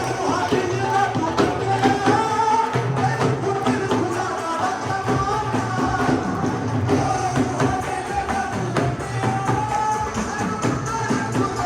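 Live worship music: a sung melody over instruments with a steady percussion beat.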